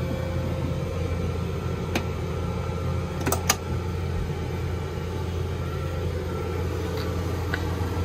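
Steady low hum of a 12-volt, 12,000 BTU marine air conditioner running with its compressor on. A few light clicks come about two and three and a half seconds in.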